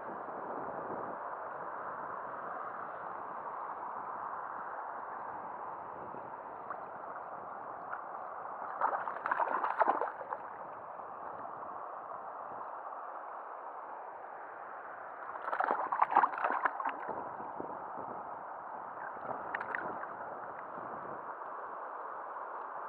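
Steady rushing of river current, with bursts of splashing about nine seconds and sixteen seconds in and a smaller splash near twenty seconds, as a hooked grayling thrashes at the surface while being brought in.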